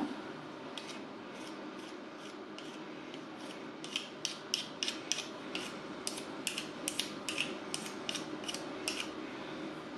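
Disposable wooden chopsticks being rubbed against each other to scrape off splinters: a run of short rasping strokes, faint at first, then louder at about three a second from around four seconds in until near the end.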